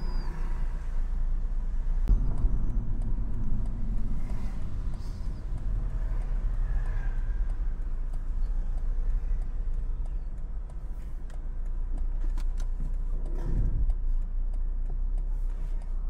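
Cabin sound of a BMW 220i (G42) driving slowly, its B48 2.0-litre turbocharged four-cylinder engine and tyres giving a steady low rumble, with a few brief swells. Light regular ticks come in near the end.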